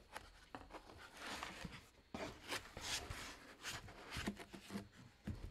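A foam packaging insert and a cardboard box being handled, scraping and rustling in irregular bursts with small knocks and clicks.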